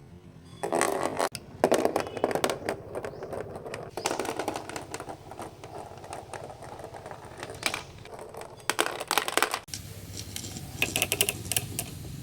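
Marbles rolling and clattering down marble run ramps: a rolling rumble with rapid clicks and rattles as they knock against the track and each other, in several clusters, the densest near the end.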